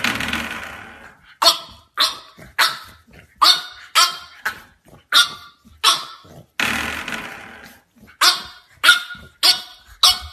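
French Bulldog puppy barking: a series of about a dozen short, sharp barks, with two longer, growly barks at the start and about seven seconds in.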